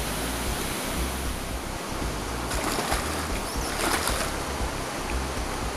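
Water splashing at the pond's edge as a hooked fish is brought in to the net, with two short bursts of splashing about two and a half and four seconds in, over a steady rushing hiss.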